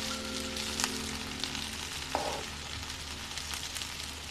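Food sizzling in a frying pan on a gas hob while being stirred with a metal spatula, which clicks sharply against the pan a couple of times.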